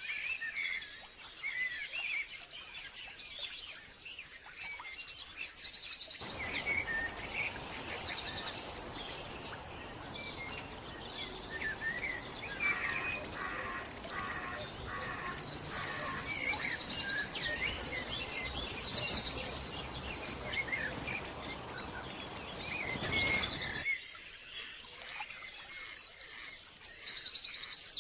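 Several wild birds calling and singing, with many short chirps and quick trills. From about six seconds in to about twenty-four seconds in, a steady rushing noise sits under the birdsong and then stops abruptly.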